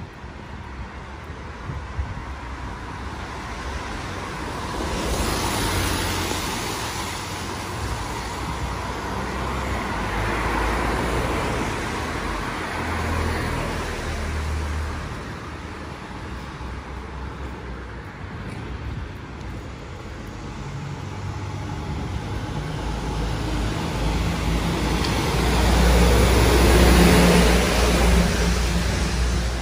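Road traffic: several cars pass one after another, each swelling and fading, with the loudest pass near the end.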